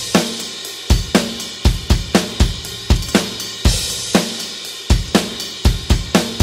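Drum kit alone playing a steady rock beat at 120 bpm: kick drum and snare under hi-hat and cymbals, with no other instruments.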